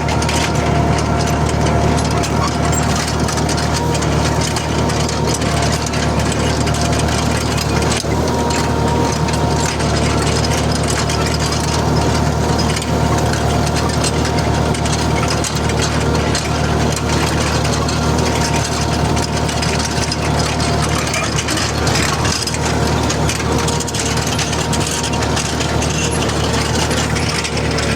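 New Holland TD4.100F tractor's four-cylinder diesel engine running steadily.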